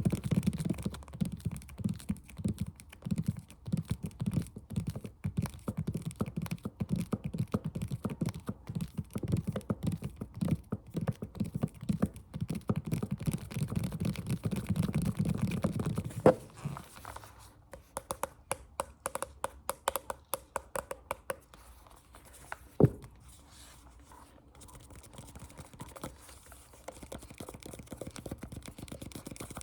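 Fast ASMR tapping with the fingers: a dense, rapid patter of taps for about the first half, then lighter, sparser taps, broken by two single louder knocks.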